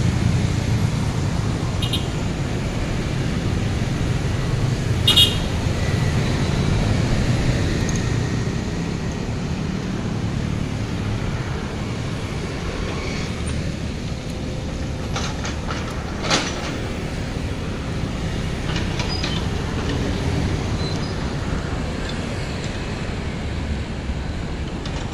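Sumitomo compact crawler excavator's diesel engine running steadily as the arm and bucket work, with a few sharp knocks, the loudest about five seconds in and another about sixteen seconds in.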